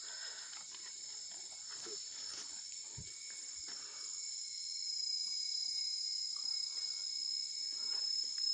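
Steady high-pitched insect chorus, with a few faint knocks and clicks of work going on.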